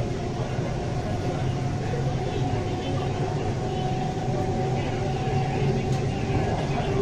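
Bangalore Namma Metro train running along its elevated track, heard from inside the carriage: a steady rumble with a faint whine held at one pitch.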